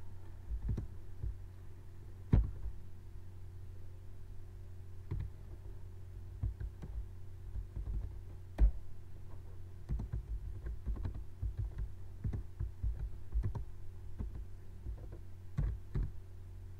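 Typing on a computer keyboard: irregular keystrokes with a few louder strikes and a quicker run of typing in the second half, over a low steady hum.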